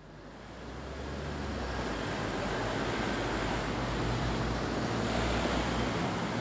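Steady rushing outdoor noise of wind and distant traffic, with a low drone underneath, fading in over the first couple of seconds.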